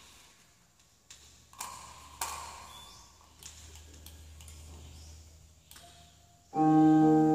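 A few clicks and taps from an electronic keyboard's panel buttons and keys, then near the end a chord struck on the keyboard in a piano-like voice, sustained and slowly fading.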